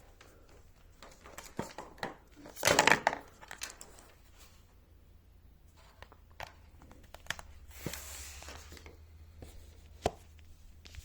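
Handling noises as a laptop power adapter's cable and plug are handled and connected to the notebook: scattered clicks and knocks, with a loud rustle about three seconds in and a softer one near eight seconds.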